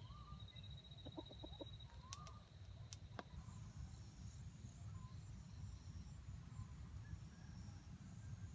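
Faint clucking of a wild jungle fowl: a quick run of four clucks about a second in and a couple of short rising calls, over a steady high whine that stops about three seconds in and a low background rumble.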